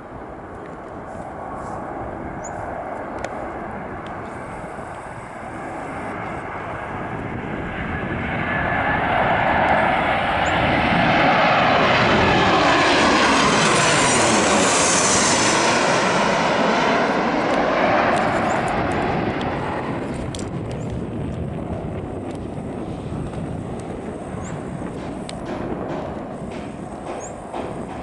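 Boeing 737-800's CFM56-7B turbofan engines on final approach, growing louder as the jet comes in low and passes directly overhead about ten to sixteen seconds in. A whine slides down in pitch as it goes over, then the sound fades as the jet flies on toward the runway.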